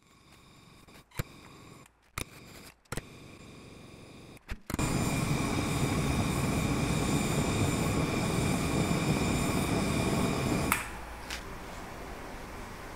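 Handheld gas torch burning with a steady hiss as it heats copper tube joints for soldering. It comes in about five seconds in, after a few light clicks and knocks, and cuts off a couple of seconds before the end.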